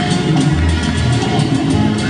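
Salsa music playing loud, with a bass line and a steady percussion beat.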